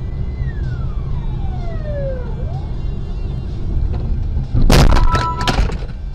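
Car braking hard, with a squeal that falls steadily in pitch over about two seconds. About four and a half seconds in comes a loud crunching crash as the car rear-ends the Mazda sedan ahead, all under a steady low road rumble.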